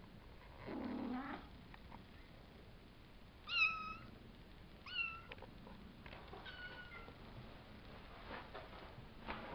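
Savannah kittens about five weeks old mewing: three short, high-pitched mews, the first the loudest and the last fainter and slightly falling. A brief rustling noise comes about a second in.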